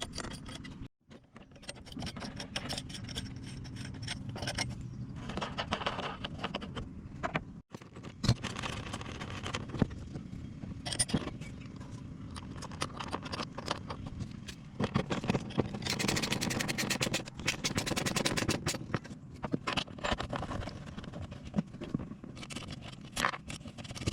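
Handling noise of a kayak seat being fitted: the seat frame and its fittings scrape, rattle and click against the kayak, with many sharp clicks, in several stretches broken by brief gaps.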